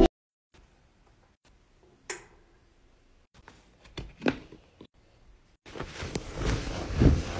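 A sharp click about two seconds in and a few light knocks around four seconds from a wipes canister's lid being handled, then a wet cleaning wipe rubbing and scrubbing across a surface from nearly six seconds on.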